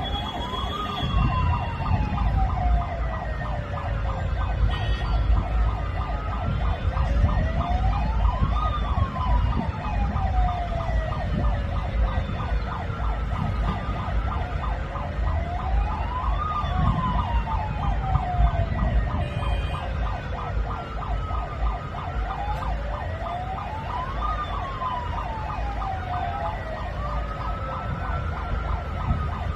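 Sirens on private cars wailing, each sweep rising quickly and falling slowly, about every eight seconds, with at least two sirens overlapping. A steady low rumble runs underneath.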